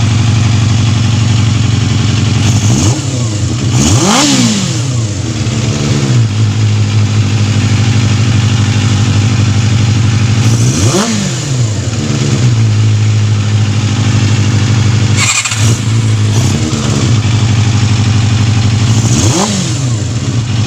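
Yamaha Zeal 250's inline-four engine idling steadily, with the throttle blipped several times so the revs rise and fall quickly. The idle has fairly settled, and the carburettors are still to be synchronised.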